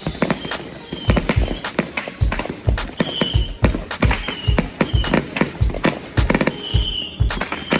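Consumer fireworks going off in quick succession: a dense, irregular run of sharp bangs and pops, with short shrill whistles from rockets rising among them.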